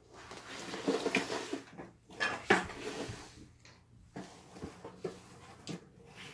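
Small dog moving on a wooden floor while dragging a plush and rope toy fixed to its harness: claws clicking and the toy scuffing, with irregular knocks. The loudest knock comes about two and a half seconds in, and only scattered taps follow.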